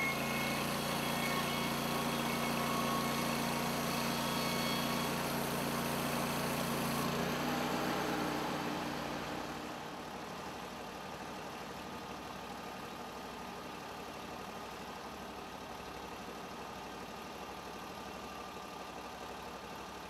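Norwood LumberPro HD36 portable band sawmill running: a steady engine and band-saw hum. It drops to a quieter, steady level about nine or ten seconds in.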